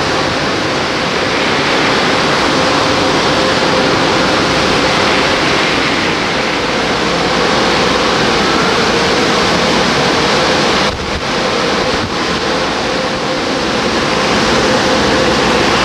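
Belanger AirCannon touch-free car wash dryer blowing: a loud, steady rush of air from its nozzles with a steady hum running underneath. The sound briefly dips twice about two-thirds of the way through.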